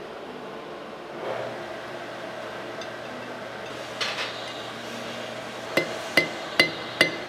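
Blacksmith's hammer striking a hot steel scroll held on the anvil. There is a single metallic clink about four seconds in, then four evenly spaced ringing blows near the end, about two and a half a second, over a low steady hum.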